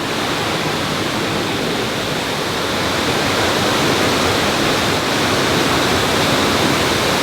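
Waterfall's water falling in a steady, even rush, growing a little louder about halfway through.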